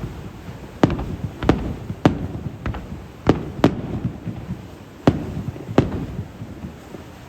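Aerial fireworks shells bursting: about seven sharp bangs at uneven spacing, each followed by a low rumbling echo that carries on between bursts.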